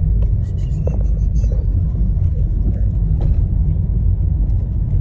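Steady low rumble of a car's cabin while driving, with a few faint clicks and rustles of handling over it.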